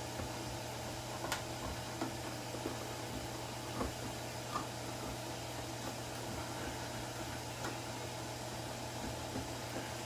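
Knife tip working around the lid of a metal coconut cream can to open it without a can opener: a scattering of small metal clicks and taps, the sharpest about a second in, over a steady background hum.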